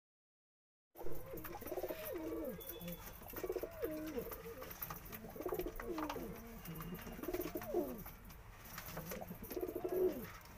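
Madrasi pigeons cooing: a run of low, rolling coos, one after another, starting about a second in.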